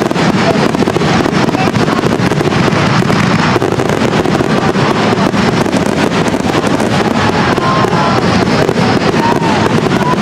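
Fireworks going off in a dense, continuous crackle.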